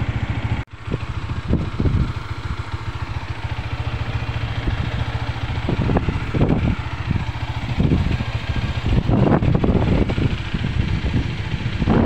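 Bajaj Dominar 400's single-cylinder engine idling steadily. The sound drops out briefly just under a second in.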